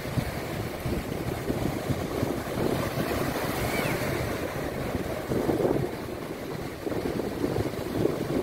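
Small surf waves breaking and washing up a sandy beach, with wind rumbling on the microphone.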